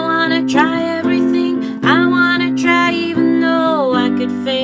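A woman sings a song in long held notes over a steady instrumental backing. Near the end, one long note slides down in pitch.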